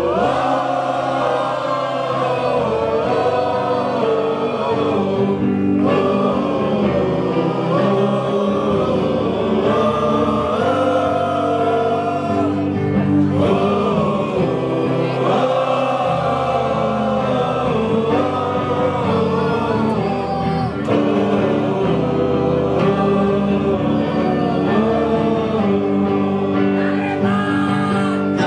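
A group of men singing a football supporters' song together, led by one male voice on a microphone, over steady held backing chords.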